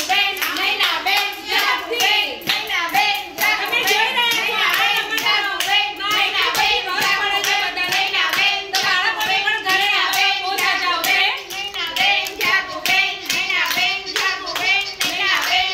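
A crowd of children clapping fast and irregularly while many high young voices call out and chant over one another.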